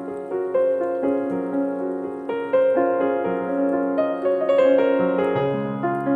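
Background piano music, a calm melody over sustained chords.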